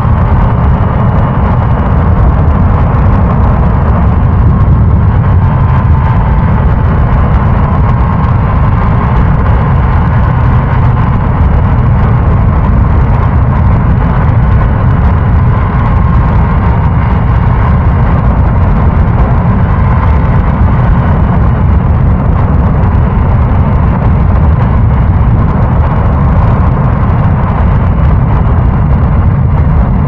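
Motorbike engine running steadily under way, recorded raw without wind noise.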